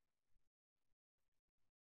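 Near silence: faint room tone, cut out to dead silence in stretches.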